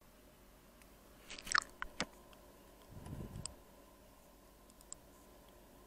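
Small clicks and crackles of tools being handled on a workbench: a quick cluster about a second and a half in, then a soft low bump about three seconds in and a few faint ticks.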